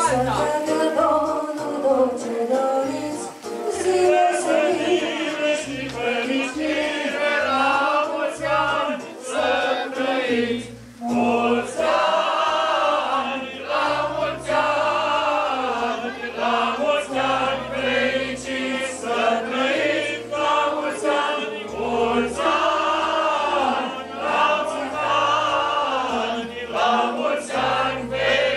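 A group of voices singing together over music with a low bass line.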